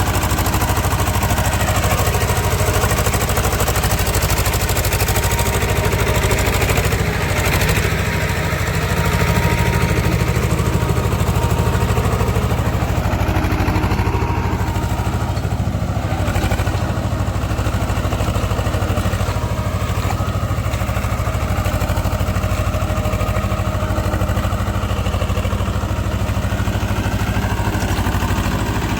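Swaraj tractor's diesel engine running steadily, a low, even engine note with little change in speed.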